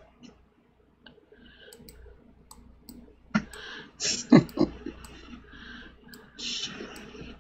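Irregular clicking of a computer mouse and keyboard as the in-world camera view is steered. The clicks are scattered, with a few louder ones about three to four and a half seconds in.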